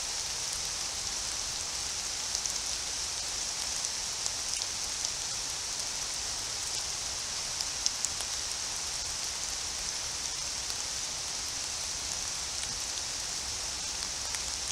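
Steady rain hiss in woodland, with scattered drops ticking sharply, the loudest a pair of ticks about eight seconds in.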